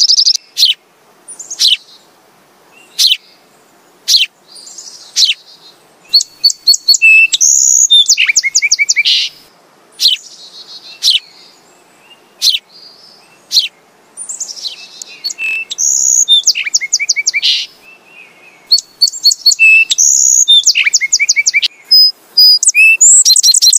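Sparrows chirping: short sharp chirps spaced a second or so apart, then runs of quick repeated chirps with notes at different pitches overlapping.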